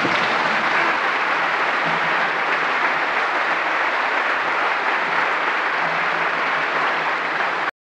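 Live theatre audience applauding steadily, cutting off abruptly near the end.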